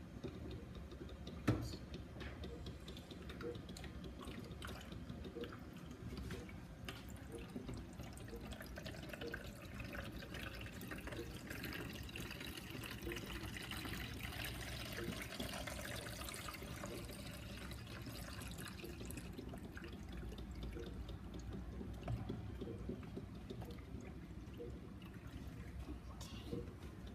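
Water poured from a jug into a drip coffee maker's reservoir, trickling and dripping. The flow is heaviest about halfway through and dies away about two-thirds of the way in, after a single knock near the start.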